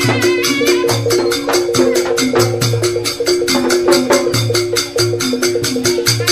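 Music with fast, even percussion strikes, several a second, over a repeating melodic line and a low bass pattern.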